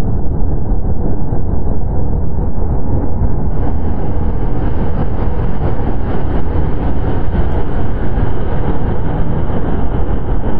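Dense, rumbling electronic noise music played back through the sforzando sampler in FL Studio: a loud, bass-heavy wall of sound with no clear notes, whose treble opens up suddenly about three and a half seconds in. A single click comes near the end.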